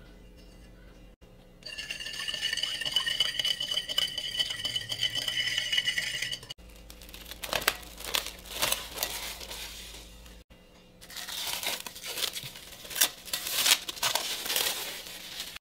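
Kitchen preparation sounds. First a steady high-pitched sound for about five seconds, then two stretches of irregular clinks and scrapes of utensils against dishes.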